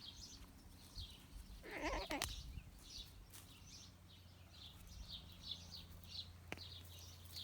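Small birds chirping repeatedly in the background, with one short animal call about two seconds in, over a low steady hum.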